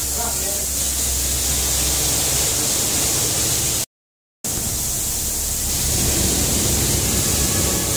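Steady hissing noise over a constant low hum, broken by a sudden half-second dropout to silence about four seconds in.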